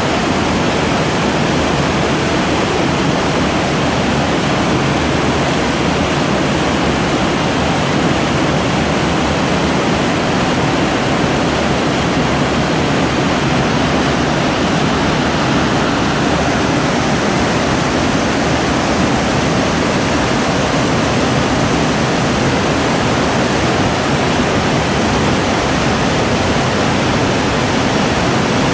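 Whitewater cascade rushing steadily down a narrow rock gorge, heard from under a concrete arch.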